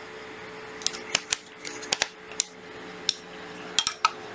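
About ten irregular sharp clicks and light metallic taps from handling a MAX RB-395 rebar tying tool: fingers on its controls and a screwdriver poking at the wire in its nose. A faint steady hum runs underneath.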